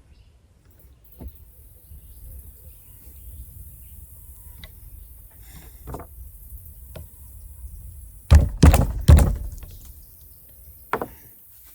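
A few sharp knocks while the muzzleloading pistol is being loaded. The loudest three come in quick succession about eight seconds in, with one more near the end.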